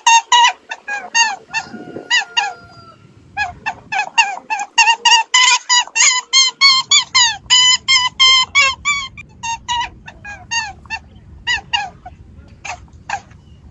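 Geese honking, short nasal honks coming several a second. There is a brief lull about three seconds in, and the honks become more spaced out toward the end.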